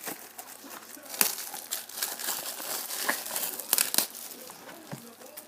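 Plastic wrapping on a sealed hockey card box crinkling and tearing as it is cut and pulled open, with several sharp clicks.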